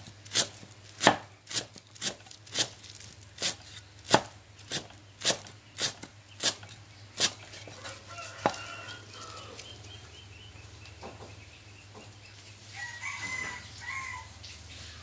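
Cleaver chopping green onions on a round wooden chopping block: steady sharp chops, a little under two a second, for about seven seconds, then one more and a few faint taps. A chicken calls briefly near the end.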